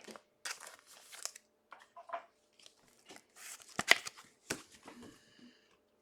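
Trading-card pack wrappers and cards being handled: irregular crinkling and tearing rustles, with one sharp snap just before four seconds in, the loudest sound.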